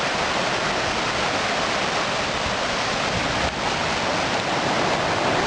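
River water rushing steadily, a constant even noise.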